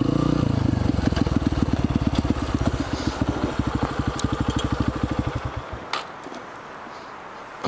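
Honda CRF150F's single-cylinder four-stroke engine running at low revs, its firing pulses slowing until the engine stops about five and a half seconds in. A sharp click follows soon after.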